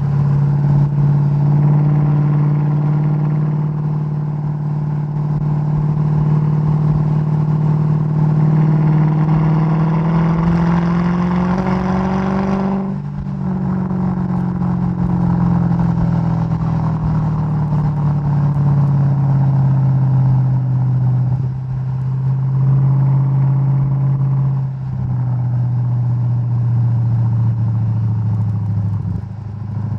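Mercedes-Benz E55 AMG (W211) supercharged 5.4-litre V8, tuned to about 580 hp, heard from outside the car under way. The engine note rises steadily for about twelve seconds and breaks off abruptly. It then falls slowly, with three brief drops in level near the end.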